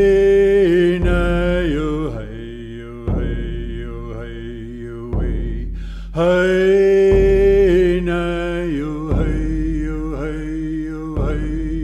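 A chanted song of long held vocable notes, over a deep drum struck about every two seconds.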